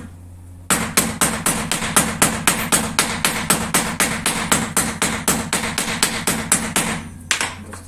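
A rapid, even series of sharp knocks, about four a second, lasting some six seconds and then stopping.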